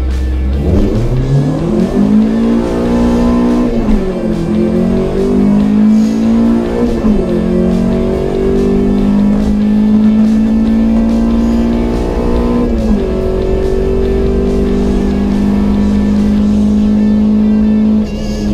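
Fourth-generation Honda Civic's four-cylinder engine pulling hard through the gears on a timed acceleration run: the pitch climbs, drops at three upshifts and climbs again, then eases off as the throttle is lifted near the end.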